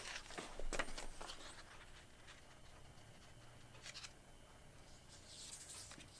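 A sheet of paper handled and laid over a cut-open plastic bottle: a few light clicks and rustles in the first second or so, then a soft rustle of paper being pressed flat near the end.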